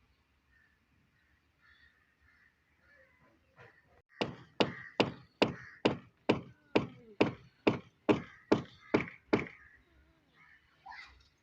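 A run of about thirteen sharp knocks at a steady pace of two or three a second, starting about four seconds in and stopping about five seconds later.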